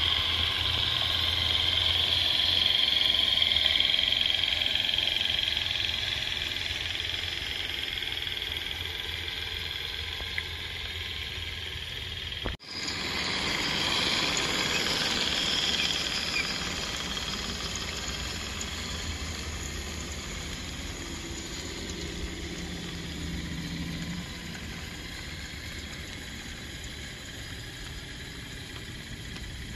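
Regner Class A Climax live-steam garden locomotive running along the track, with the steady hiss of its steam and the clatter of its geared running gear. The sound cuts out for an instant about halfway through, then carries on.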